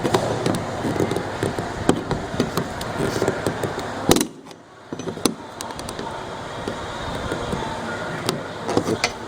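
Clicks and knocks of plastic parts as a flange is fitted onto an underwater light in an acrylic bathtub, over steady background noise. A sharp, loud click about four seconds in is followed by a brief drop in the background.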